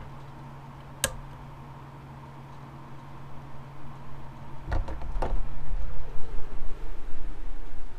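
Handling noise of a camera being moved about in bed: a sharp click about a second in, two more clicks near the middle, then low thumps and rustling that grow louder, over a steady low hum.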